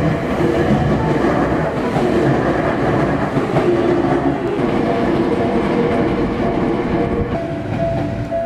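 Electric commuter train passing close by, a steady rumble of wheels on rails that eases off near the end.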